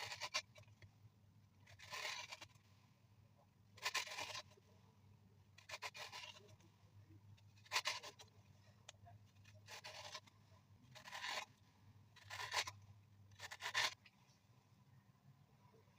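A kitchen tool drawn across a zucchini: about nine separate scraping strokes, each about half a second long, coming every one to two seconds.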